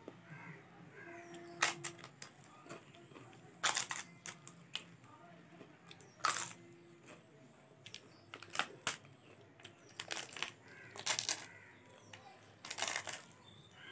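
Crisp papad crunching, about seven short, sharp crunches a second or two apart, with faint sounds of fingers mixing rice and curry in between.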